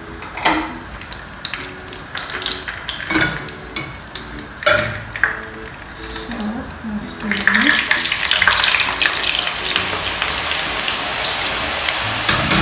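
Raw potato chips lowered in a wire frying basket into hot oil in a wok. About seven seconds in the oil starts sizzling loudly and keeps up a steady deep-frying sizzle. Before that there are a few clinks and knocks of metal cookware.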